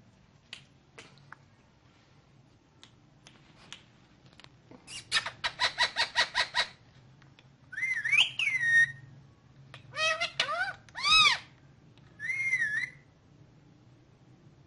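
Rose-ringed (Indian ringneck) parakeet calling: after a few faint ticks, a rapid run of about ten sharp, shrill chirps, then several whistled phrases that glide up and down in pitch.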